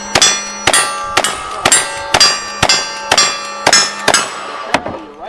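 A lever-action rifle fires about ten rapid shots at steel targets, roughly two a second. Each shot is followed by the clang and ringing of steel plates being hit.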